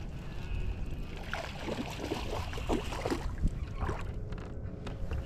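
Low wind rumble on the microphone with light water sloshing against a boat hull.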